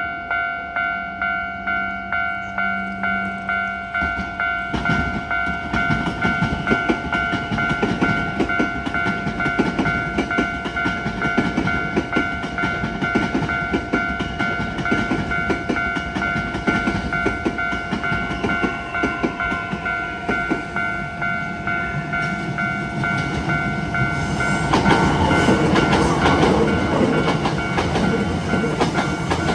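Japanese level-crossing alarm bell ringing about twice a second, while a Hankyu electric train passes over the crossing from about five seconds in, its wheels clattering over the rail joints and getting louder near the end.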